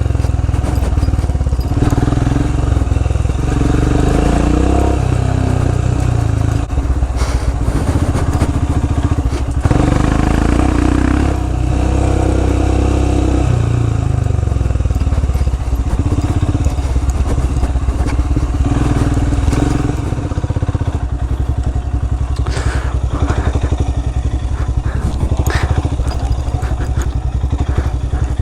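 Royal Enfield Himalayan's single-cylinder engine running as the motorcycle is ridden over an off-road trail, its note rising and falling with the throttle. Several sharp knocks and clatters come in the last few seconds.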